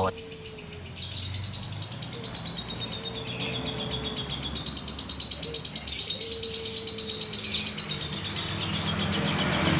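Green lovebird singing a long, unbroken chatter of rapid high-pitched notes.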